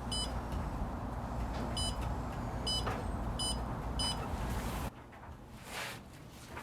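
Five short electronic keypad beeps from a heat-treat oven's digital controller as the hardening temperature is set, over a steady low hum that cuts off abruptly near the end.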